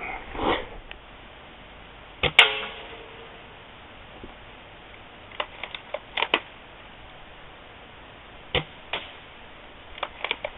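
Clicks and clacks from handling a UTG L96 bolt-action spring airsoft sniper rifle. A sharper snap with a short ringing tone comes about two seconds in, followed by small clusters of light clicks.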